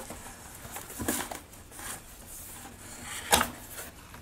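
Cardboard camera box being handled and its lid flap opened: soft rubbing and rustling of cardboard, with one sharp knock a little over three seconds in.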